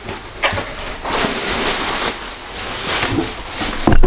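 Clear plastic bag crinkling and rustling as a bagged garment is pulled out of a cardboard box, with a sharp knock near the end.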